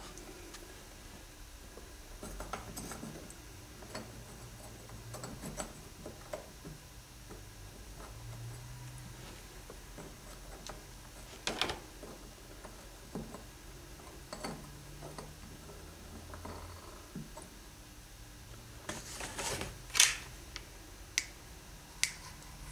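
Scattered light taps, scrapes and clicks of hand handling as a plaster rock casting is pressed into place on hot glue, with a louder cluster of sharp clicks near the end.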